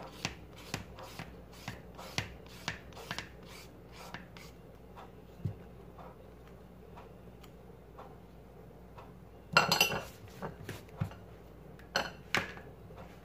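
Vegetable peeler scraping down the skin of a cucumber in short rasping strokes, about two a second, with a peeler the cook finds not sharp enough. Near the end come two sharp clatters of crockery, the loudest sounds.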